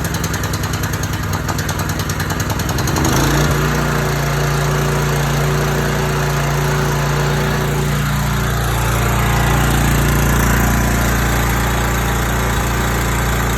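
Small gas engine of a 4000 PSI pressure washer running just after start-up. For about three seconds it runs with a fast, uneven pulsing, then it gets louder and settles into a smooth, steady run.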